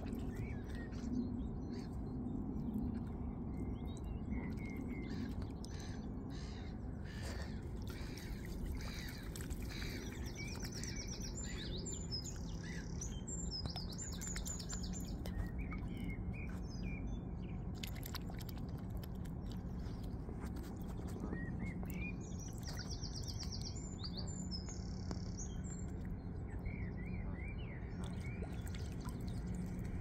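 Small songbirds chirping and singing, with two spells of rapid high trills, over a steady low background rumble.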